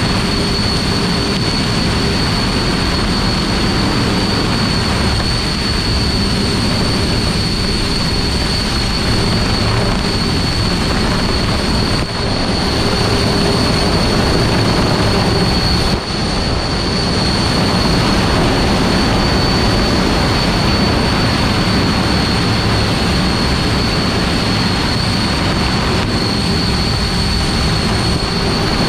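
Wind machine of electric ducted fans blowing at full power: a loud steady rush of air with a high whine, over the rapid flapping and rattling of a nylon jacket in the blast. The level dips briefly twice, about twelve and sixteen seconds in.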